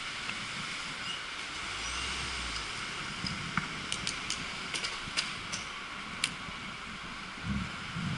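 An e-bike rolling through a town street makes a steady rush of tyre, wind and traffic noise. A quick run of sharp clicks and rattles comes a few seconds in, and a couple of low thumps near the end.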